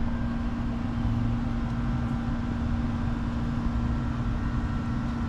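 A machine running steadily, with a constant hum over a low rumble.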